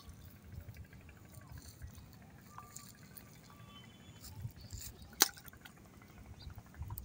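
Bamboo-pole line cast out: the float and baited hook drop into the pond with one short plop about five seconds in, amid faint water and handling sounds.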